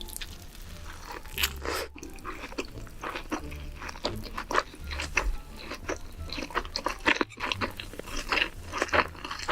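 Close-miked biting and chewing of raw salmon spring rolls wrapped with raw vegetables, many short crisp crunches in quick, irregular succession.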